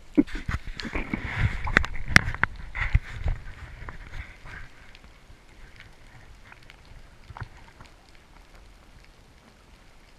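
Underwater sound heard through the camera housing: about four seconds of bubbling and knocking with sharp clicks, then a fainter bed of scattered crackling clicks.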